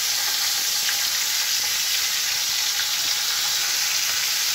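Broccoli florets frying in hot oil in a steel kadhai, a steady sizzling hiss with a few faint crackles. The oil has a little turmeric powder stirred in to keep it from spattering.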